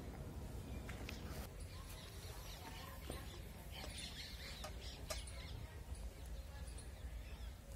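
Hens clucking faintly in the background, with a few light clicks and clinks of a steel plate being handled.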